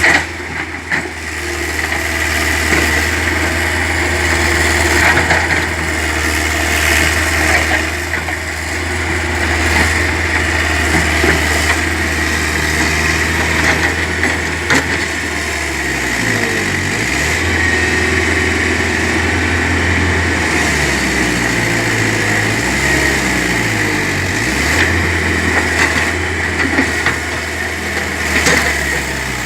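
Excavator engine running steadily with a steady high whine above it. In the second half its pitch dips and climbs back several times.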